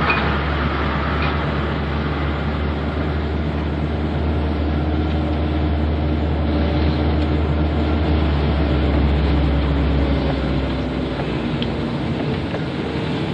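A BMW car's engine running with road noise, heard from inside the cabin while driving slowly: a steady low drone.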